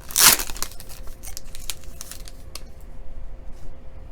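A foil trading-card pack wrapper is torn open with one loud rip about a quarter second in. Light crinkling and clicks of the wrapper and cards being handled follow, dying away after about two and a half seconds.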